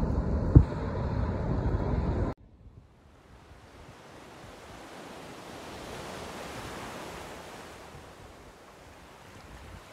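Wind buffeting the microphone, with one sharp knock about half a second in, cutting off suddenly after about two seconds. Then softer ocean surf hiss on the beach that swells and fades.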